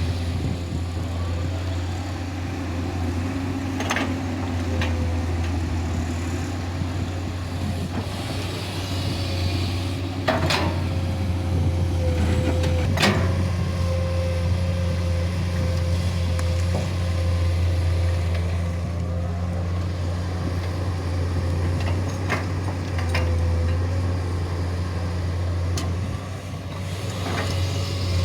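Komatsu PC200 excavator's diesel engine running steadily under working load, with a steady whine over it and occasional sharp clanks, about half a dozen, as the machine works.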